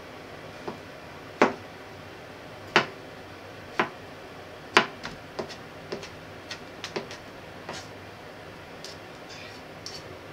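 A kitchen knife chops on a plastic cutting board. First come a few sharp knocks about a second apart, then quicker, lighter taps, and near the end the blade scrapes the chopped pieces together.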